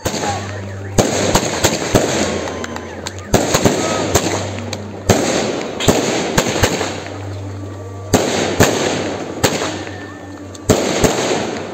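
Fireworks launched from the ground and bursting overhead: sharp bangs, often in quick pairs or threes, every second or two, with hissing and crackling between them.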